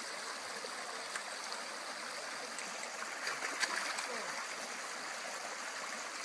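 Shallow creek running over rocks: a steady, even rushing of water.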